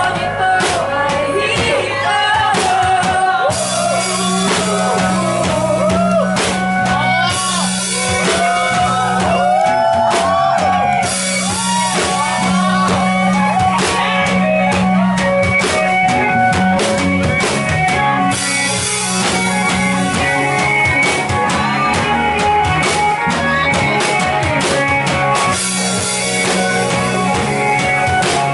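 Live band playing a song: a woman's singing voice over drum kit, bass and guitar, loud and steady. Heard from within the crowd in a small club.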